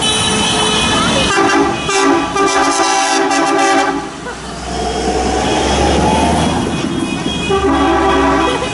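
Vehicle horns on passing tractors tooting: one long horn call of about two seconds, then a shorter one near the end. The low, steady sound of a big tractor's diesel engine runs under the second half as it drives close by.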